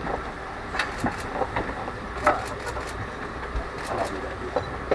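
Motor cruiser's engine running with a steady low rumble, with scattered sharp clicks and knocks over it.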